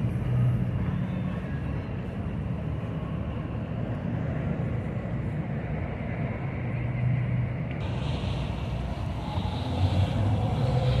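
Motorboat engines running on the river, a low steady rumble over a haze of water noise, with a brighter hiss joining about eight seconds in.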